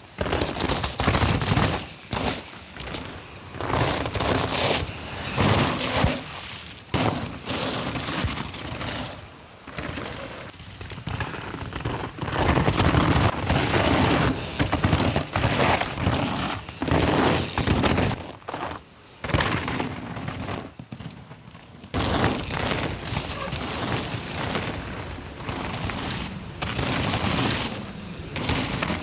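Mountain bike ridden fast down a wet, rough trail: tyres tearing through mud and over roots, with repeated irregular thumps and clatter from the bike over bumps. It drops away for a couple of seconds about two-thirds of the way in, then picks up again.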